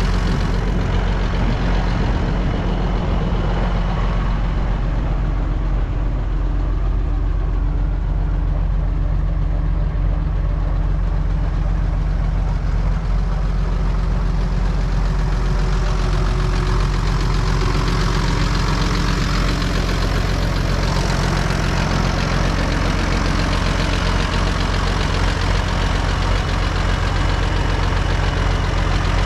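Zetor 16145 Turbo Intercooler tractor's turbocharged six-cylinder diesel engine running steadily with a low, even drone as the tractor drives through the field.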